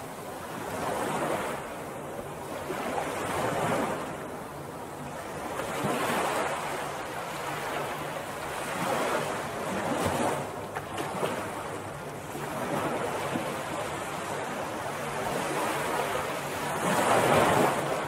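Ocean surf washing onto a beach, waves swelling and falling away every few seconds, the loudest one near the end.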